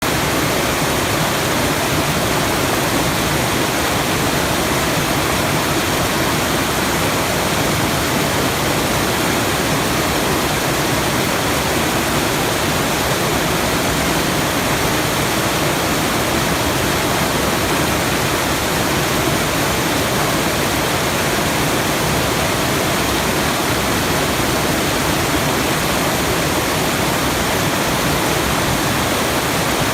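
Steady, unbroken rush of falling water, like a waterfall, evenly loud throughout.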